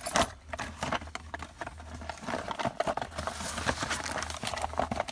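Irregular small clicks, taps and rustling of a new ignition lock cylinder and its keys being handled.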